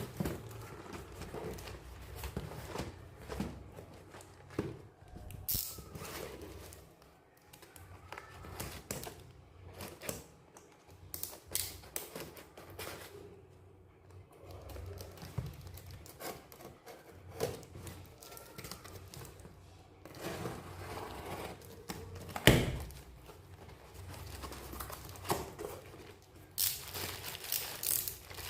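Product packaging being unpacked by hand: plastic and paper crinkling and tearing, with boxes and bottles tapped and set down in irregular clicks and knocks. One sharp knock comes about three-quarters of the way through, and dense crinkling follows near the end.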